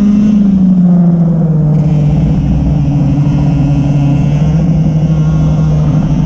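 Racing kart engine running under load at speed; its note drops about a second in, holds steady, then rises slightly near the end.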